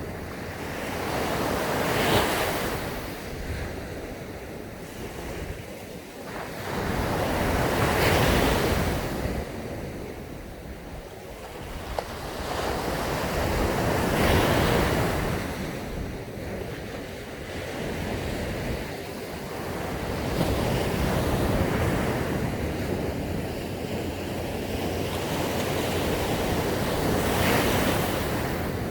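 Sea waves breaking on a sandy beach, each one swelling to a rush and drawing back, about every six seconds, with wind on the microphone.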